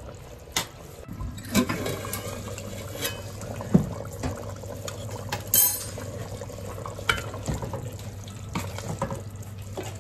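Thick mutton karahi gravy simmering and bubbling in a large aluminium pot as a silicone spatula stirs through it, with scattered knocks of the spatula against the pot. A steady low hum starts about a second in.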